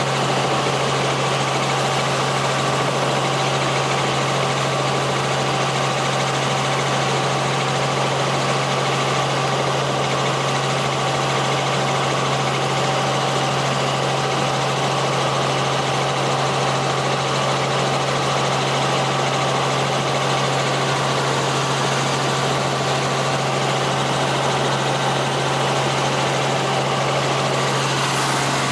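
Small helicopter in flight, heard from inside the cabin: a steady drone of engine and rotor with a strong low hum and two steady higher tones over an even rushing noise.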